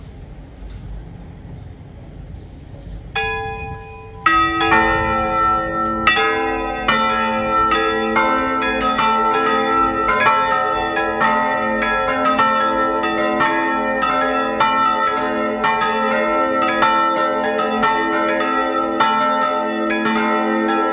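Four swinging church bells in an open steel frame: Felczyński-cast bells of about 70 to 500 kg tuned to G-sharp, E, C and A. They start one after another about three seconds in, then ring together in a full, overlapping peal.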